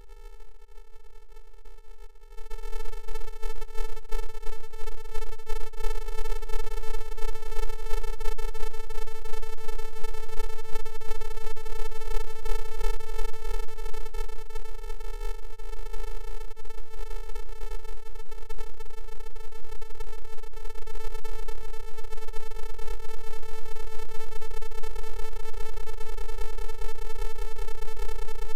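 A steady, buzzy electronic tone held at one pitch, with a low hum beneath it; it jumps louder about two seconds in and then holds unchanged.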